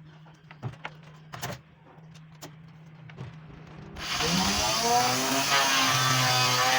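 Faint taps and knocks of handling a workpiece, then about four seconds in an electric power tool switches on, spins up and runs steadily at high speed.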